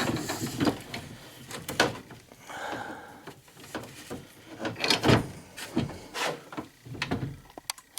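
Irregular clunks, scrapes and rubbing from refrigerator parts being handled and pulled apart during scrapping, with a louder knock about two seconds in and another about five seconds in.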